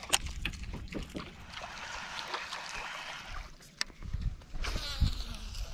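Water sloshing around a small fishing boat, with scattered sharp knocks and clicks from gear being handled.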